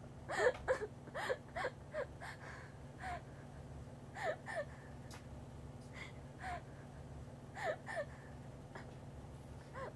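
A frightened person whimpering and gasping in short sobbing cries. The cries come thick in the first two seconds, then every second or so, over a steady low hum.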